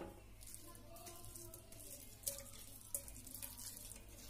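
Quiet wet sounds of cooked rice ada being pushed with a wooden spoon from a wire mesh strainer into hot milk in a pressure cooker, with a couple of light taps of spoon on strainer.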